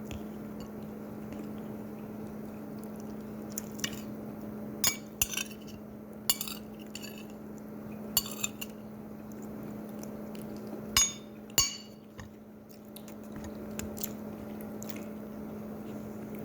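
Cutlery clinking against plates and dishes while people eat, scattered light clinks with the two loudest close together past the middle, over a steady low hum.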